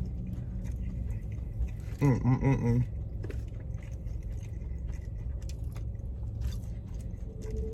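Close-up chewing and crunching of fried seafood, with small wet mouth clicks, over a steady low hum. A short hummed 'mm' a little after two seconds in.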